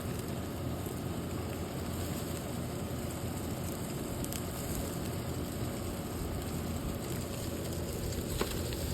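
Slider patties sizzling steadily on a grill, with a small click near the end.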